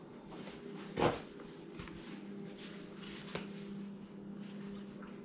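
Handling noises from work on a small dirt bike: one dull thud about a second in and a sharp click a little past three seconds, with light rustling over a steady low hum.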